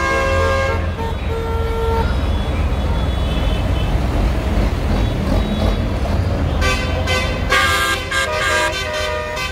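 Diesel engines of a line of farm tractors running as they pass close by, a steady low rumble. Horns toot in the first couple of seconds and again for a couple of seconds near the end.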